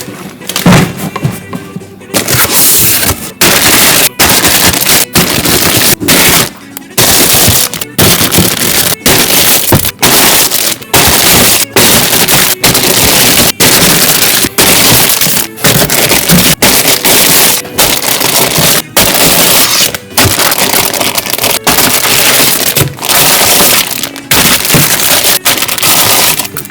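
Plastic packaging of a model kit crinkling and rustling loudly in long stretches broken by brief pauses, as parts bags are handled and unwrapped.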